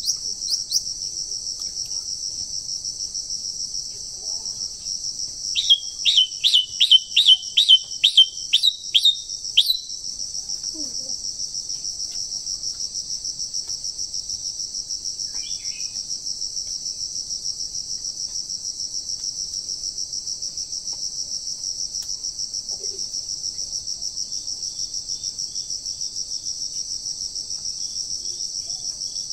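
Steady, shrill, pulsing drone of forest insects. From about six to ten seconds in, a songbird gives a rapid run of about ten sharp, loud call notes, and a few faint calls follow later.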